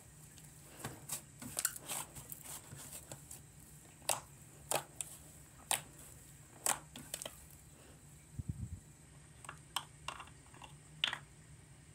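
Frozen yogurt slime being squeezed and poked by hand, giving irregular sharp pops and crackles, with one dull thump about eight and a half seconds in.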